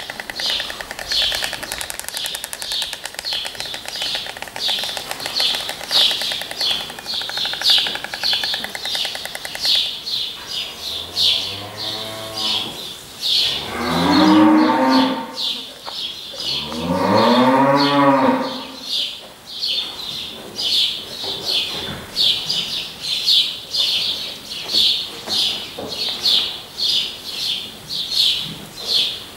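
A cow moos twice near the middle, two long calls that each rise and then fall in pitch. High chirps repeat rapidly throughout, and a steady hum stops about ten seconds in.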